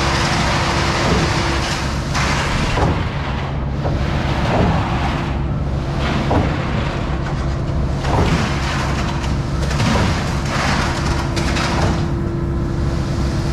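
Skid-steer engine running steadily while it drives a hydraulic concrete pump. A rush of noise swells and fades about every two seconds as the pump cycles.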